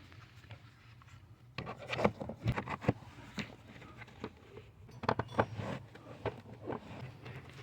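Irregular sharp metal clicks and light taps from hand work on the steering parts, in two short clusters a few seconds apart.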